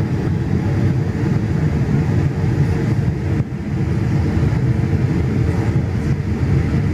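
Steady cabin noise of a Boeing 787 Dreamliner in flight, heard from a window seat by the wing: engine and airflow as an even, low rumble.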